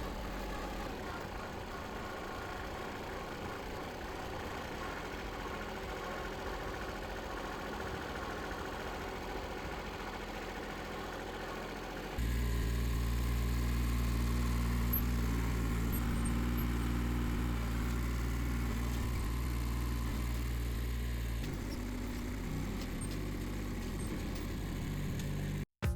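Small gasoline engine of a Harbor Freight towable backhoe trencher running steadily. About halfway through it abruptly gets louder and deeper, and it shifts again near the end.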